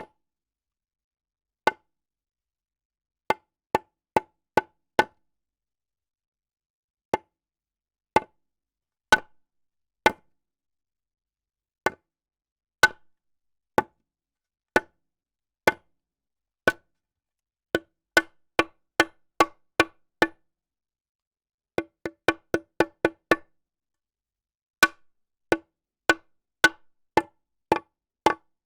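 Hammer striking wood: a series of sharp, hollow knocks with a short ring, spaced irregularly, sometimes single, sometimes in quick runs of several blows.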